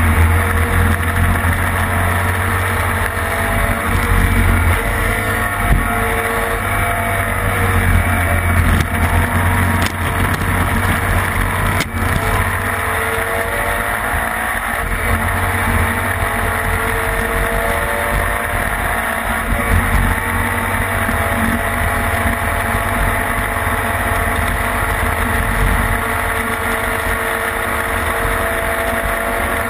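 Classic racing sidecar outfit's engine at full race speed, heard onboard: its pitch climbs, drops back and climbs again as it is run up through the gears. Heavy wind buffeting on the microphone underneath.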